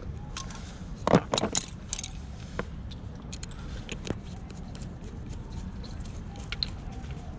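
Light clicks and clinks of small metal parts being handled and fitted into the door-handle mechanism, loudest in a quick cluster about a second in, then scattered faint ticks over a low steady hum.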